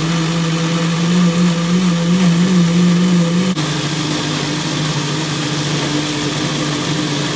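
Small personal blender motor running steadily, blending an oily hair-mask mix of olive oil, avocado and mayonnaise. Its hum steps down slightly in pitch and loudness about three and a half seconds in.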